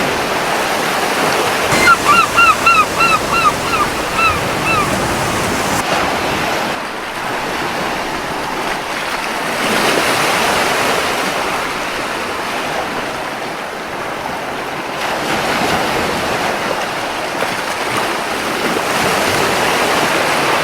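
Ocean waves washing onto a beach in a steady rushing wash that swells a few times. From about two seconds in to about five seconds in, a seagull calls in a quick run of about a dozen short notes.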